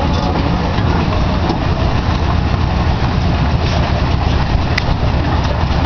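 Engine and rolling noise of a trackless park road-train ride heard from aboard as it drives along: a steady low rumble, with a faint brief click near the end.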